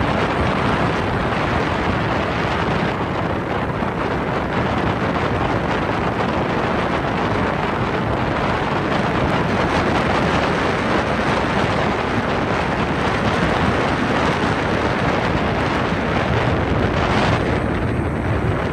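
Wind buffeting the microphone aboard a boat under way: a steady loud rush, with the boat's running noise blended in and a stronger gust near the end.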